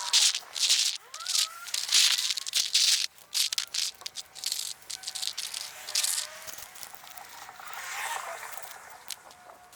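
Loose gravel and lava rock crunching and rattling in a run of short irregular bursts, thinning out after about six seconds.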